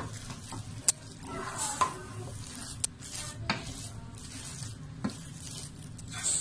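A wooden spatula stirring a thick chicken, potato and carrot filling in a stainless steel pot, over a steady sizzle. A few sharp knocks of the spatula against the pot's side break through.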